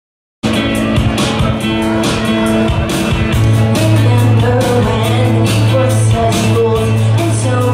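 Music with a steady drum beat starts abruptly about half a second in, after silence.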